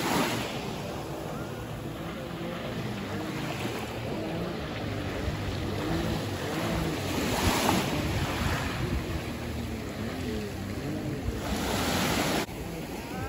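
Small waves washing onto the beach, with wind on the microphone and a jet ski's engine droning out on the water, its pitch rising and falling. The wash swells louder twice, about seven seconds in and near the end.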